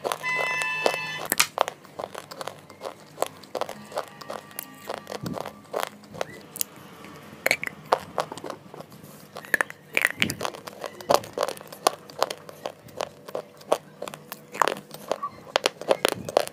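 Close-miked crunching of hard white slate bars dipped in a creamy paste: many sharp, irregular bites and crunches with chewing between them. A brief chime-like musical tone sounds in the first second.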